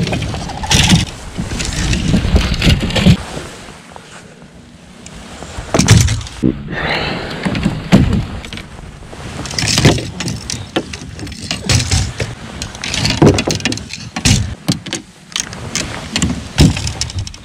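Fishing rods being stowed in a bass boat's rod locker and the fibreglass locker lid shut: irregular knocks, clatters and rattles, with rustling handling noise between them.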